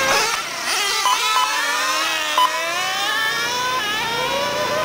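Several 1/10 scale nitro RC on-road cars racing, their small two-stroke glow engines whining at high revs, the pitch of each rising and falling as the cars accelerate and brake, with a short sharp tick about halfway through.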